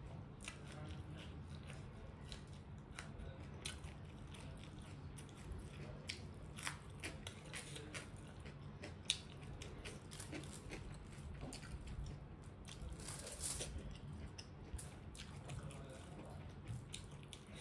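Close-miked eating sounds: chewing and wet mouth noises with many small clicks and crackles as fingers pick through rice and food on the plate, over a steady low hum. One sharp click comes about halfway through.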